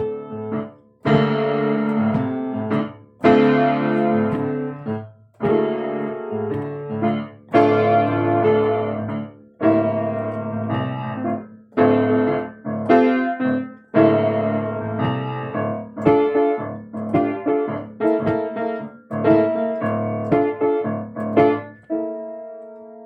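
Keyboard played with a piano sound: chords and notes struck one after another, each ringing and fading, in a loose steady rhythm.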